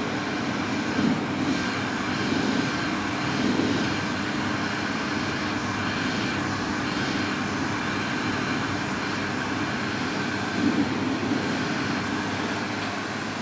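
Stiebel Eltron electronic automatic hand dryer running with hands under the outlet: a steady rush of blown air over a low motor hum, swelling briefly a few times as the hands move in the air stream.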